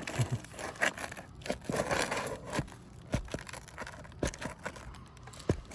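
Brittle old asphalt roof shingle being worked loose, crumbling and tearing, with scattered sharp clicks and scrapes.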